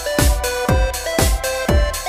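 Electronic background music with a steady kick-drum beat, about two beats a second, under a stepping synth melody.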